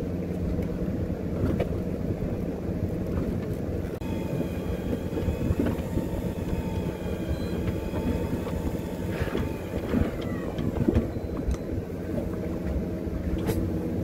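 Fishing boat's engine running steadily, a continuous low hum. A faint steady whine joins for several seconds in the middle, with a few short clicks.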